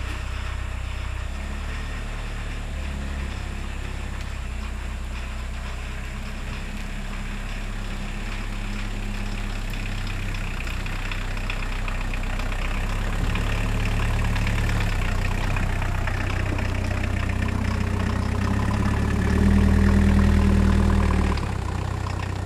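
1981 Volkswagen Rabbit pickup's engine running as the truck backs out of the shop and pulls away, its note stepping up and down and loudest for a couple of seconds near the end. A new drive belt is on, and the belt squeal is gone.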